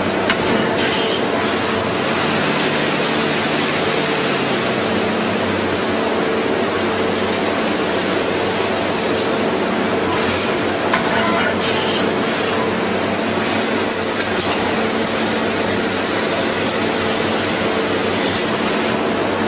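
CNC machine tool running: a steady loud mechanical hiss and hum, with a high whine that cuts in about a second and a half in, drops out, and returns for the second half.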